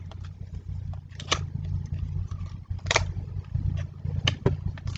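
Stiff pages and lift-up flaps of a cardboard pull-and-lift picture book being handled, giving a few short taps and rustles, over a steady low hum.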